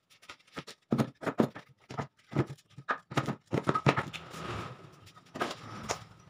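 Cut plywood pieces being handled and set down on a wooden table-saw top: a run of irregular light knocks and scrapes, thickest in the first half and a couple more near the end.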